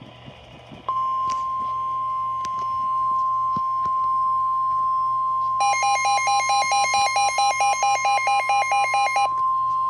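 Weather-radio emergency alert tone: a single steady tone near 1 kHz that starts about a second in, marking a flash flood warning. Partway through, a second electronic alarm beeps on top of it about four times a second for a few seconds, then stops.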